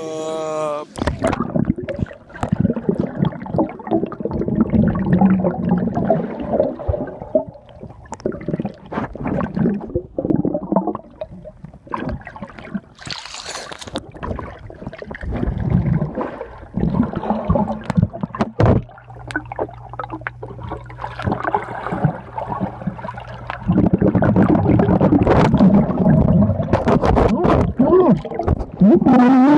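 Swimming-pool water heard through a phone microphone held underwater: muffled bubbling and churning water with frequent knocks and clicks. A louder stretch of churning comes near the end.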